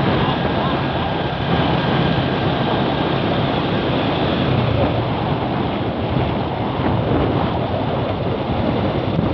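Steady rush of wind and road noise from a moving vehicle, with a low engine hum underneath and wind buffeting the microphone.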